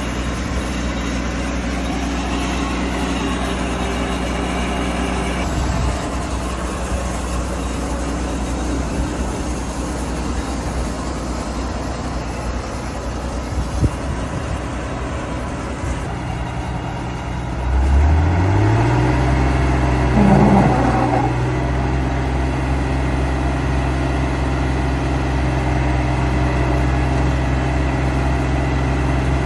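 Combine harvester's diesel engine running steadily, then revving up sharply about two-thirds of the way through and holding at the higher speed. A brief higher-pitched sound comes just after the rev.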